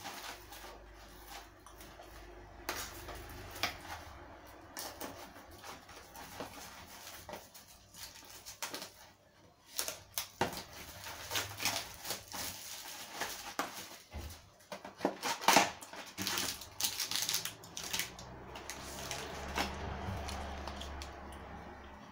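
A kitchen knife slitting plastic shrink-wrap on a cardboard box of cereal bars, then the wrap torn off and the box opened: irregular crinkling, crackling and scraping of film and cardboard.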